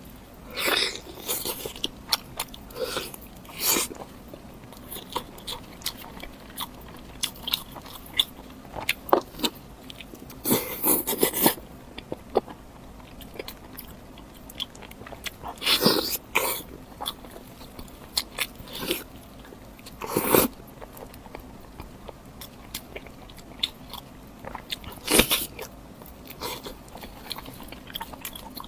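Close-up chewing and biting of meat, with wet mouth clicks throughout and louder crunching bites every few seconds.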